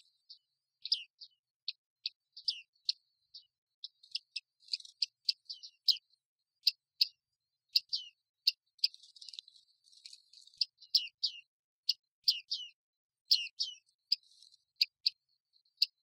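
Bearded reedlings calling: short, sharp ping calls, some falling in pitch, repeated irregularly at about two or three a second, with soft twittering in between.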